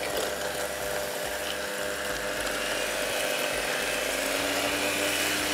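Electric beater running steadily in a bowl of liquid sponge-cake batter of eggs, milk, oil, warm water and caster sugar, beating it until the sugar grains dissolve. Its hum rises slightly in pitch near the end.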